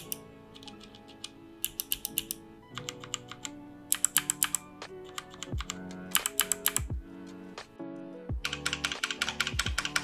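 Kailh Speed switches on an EVGA Z15 mechanical keyboard, the clicky Speed Bronze and the linear Speed Silver, pressed bare without keycaps in short quick bursts of clacks. In the last couple of seconds a key is hit in a fast, dense run of keystrokes.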